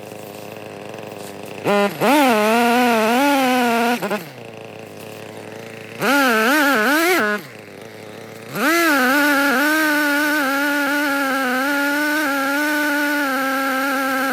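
Echo CS-3510 two-stroke chainsaw revved to high speed in three bursts. The last burst is the longest, running about seven seconds. Its pitch wavers and dips while it is held open, then drops back to idle between bursts.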